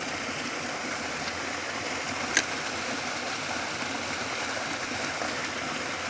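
Steady rushing of a small mountain stream, with one short sharp click about two and a half seconds in.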